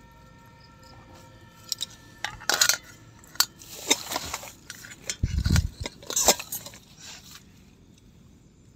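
Clinks and rattles of small hard objects being handled, in irregular bursts over several seconds, with one dull thump about five and a half seconds in.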